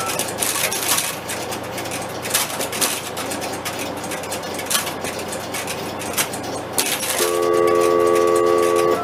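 Crossbar switches and relays of a 1971 Fujitsu crossbar PBX clicking irregularly over a steady hum and hiss. About seven seconds in, a steady tone of several pitches starts and holds for about two seconds.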